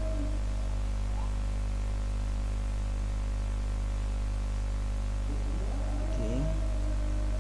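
Steady low electrical mains hum with a faint hiss, unchanging throughout.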